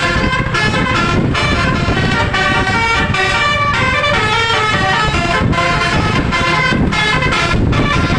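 Multi-trumpet bus horn (telolet-style 'Cortas12' set) blaring without a break, stepping through a tune of changing chords, over a steady low rush of wind noise on the microphone.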